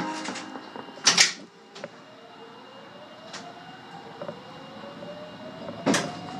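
Subway train pulling away, its traction motor whine rising steadily in pitch as it accelerates. There is a loud clunk about a second in, another near the end, and a few light clicks between.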